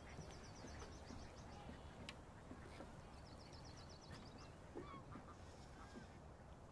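Faint lakeside ambience with waterfowl calling softly, and a fast high-pitched trill heard twice.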